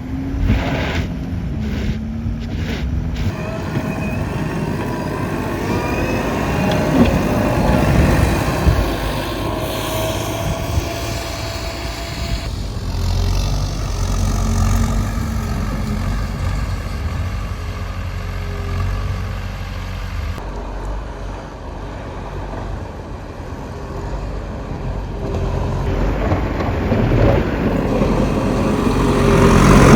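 Motor vehicle engines running and passing in the street, a steady low hum with rising and falling engine tones, changing abruptly a few times between shots.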